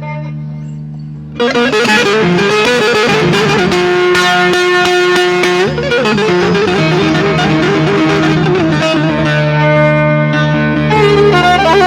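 Instrumental break in a Turkish folk song: a plucked string instrument plays a quick melody over a steady low drone, coming in loudly about a second and a half in after a fading held chord.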